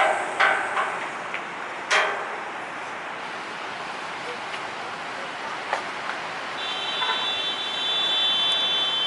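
Steady rushing noise of an approaching jet airliner, with a few sharp knocks in the first two seconds; about two-thirds in, the engines' high steady whine comes in and holds.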